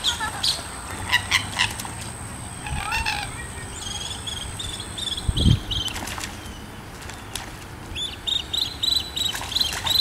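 Common gallinules fighting on the water: splashing and wing-flapping, with short, sharp clucking calls.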